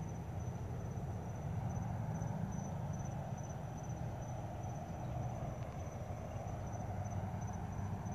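Crickets chirping in a steady, high-pitched trill over a low, steady rumble.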